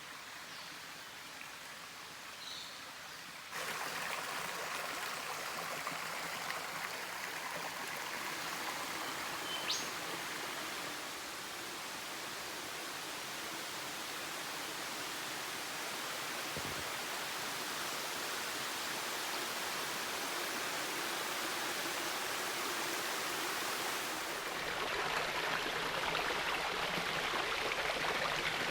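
Rainforest creek water rushing steadily, getting suddenly louder about three seconds in and again near the end. A couple of short high bird chirps sound over it.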